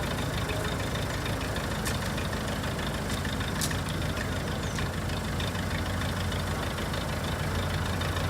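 Backhoe engine idling steadily with a low, even pulse, and a couple of short sharp clicks about two and three and a half seconds in.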